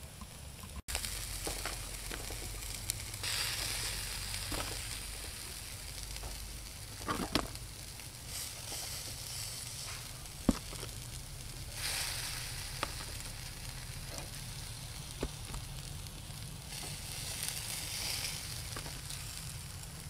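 Chicken wings sizzling on a wire grill over glowing charcoal: a steady hiss with occasional sharp pops.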